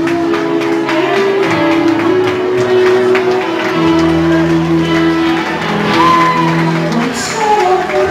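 Live band playing a Greek pop song: sustained held chords over a steady beat.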